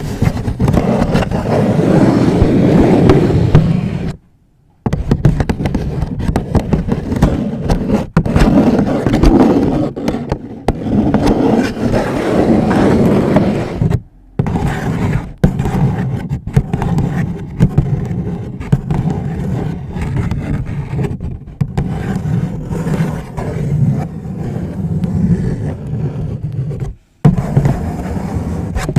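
Long fingernails scratching and rubbing over a paper bag, a dense, continuous, loud scraping and rustling, stopping briefly three times.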